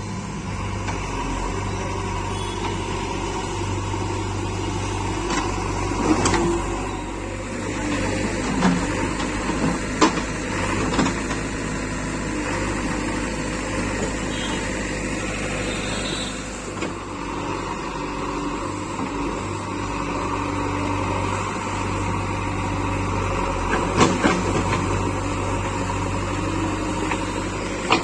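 JCB 3DX backhoe loader's diesel engine running steadily under load, with a few sharp knocks from the machine along the way.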